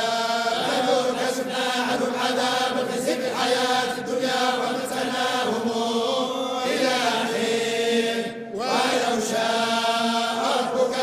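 A large group of men chanting Quran recitation in unison, in the Moroccan collective style of hizb recitation, their voices blended into one sustained chant. There is a brief pause for breath about eight seconds in, then the chant resumes.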